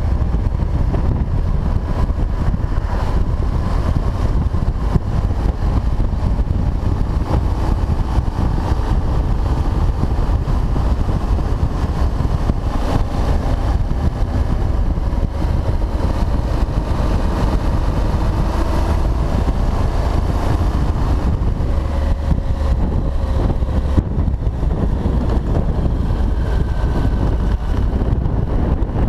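Honda NC700X parallel-twin motorcycle engine running on the move, under a heavy low wind rumble on a chest-mounted action camera's microphone. The engine's pitch wavers up and down with speed through the middle of the ride.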